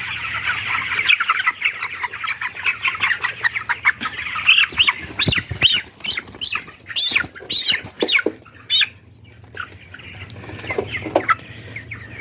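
A flock of young broiler chickens peeping and chattering. From about four to nine seconds in, one bird gives loud, repeated squawks, the distress calls of a chicken being caught and held.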